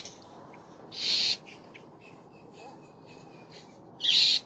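Water spraying from a garden hose in short hissing bursts, about a second in and again near the end.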